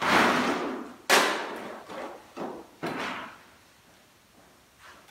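A shovel scraping up broken concrete rubble and tipping it into a plastic bucket: a quick run of crunching, clattering knocks, about five in the first three seconds, then only faint knocks.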